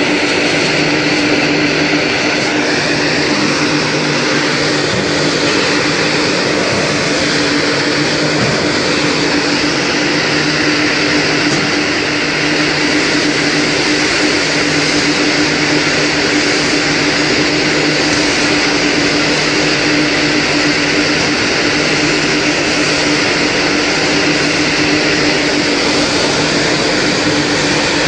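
Palm date paste grinding machine running steadily with a constant motor hum and whir.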